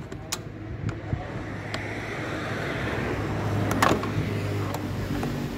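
Light clicks and knocks of hand work on the plastic air-filter housing and intake hose clamp, with a sharper click about four seconds in, over the steady low hum of a running vehicle engine.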